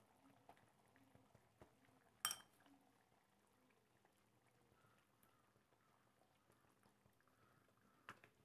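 Thick coconut egg-curry gravy bubbling faintly at the boil in a pan. A utensil clinks sharply against the pan about two seconds in, and more softly near the end.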